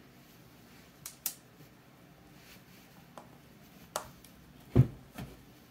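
Sharp clicks and knocks of a clear acrylic comic book slab and its screws being handled by hand, about five in all, with the loudest, a deeper knock, shortly before the end.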